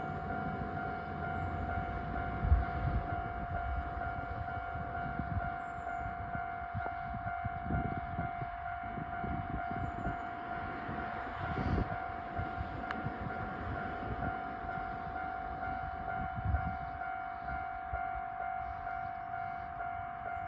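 Japanese level-crossing warning bell ringing in its steady, evenly repeating electronic clang, over the low rumble and occasional clatter of a train on the line.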